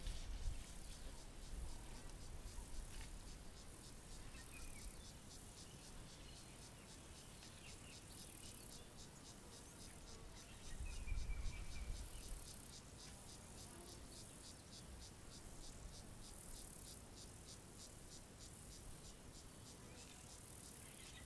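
Insects chirping in a fast, steady pulse, with a few faint bird whistles and two spells of low rumble, near the start and around eleven seconds in.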